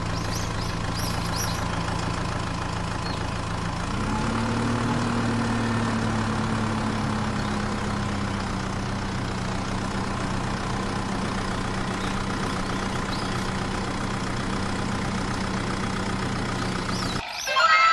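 Vehicle engine running steadily at idle, with a slight rise in pitch about four seconds in; it cuts off suddenly near the end.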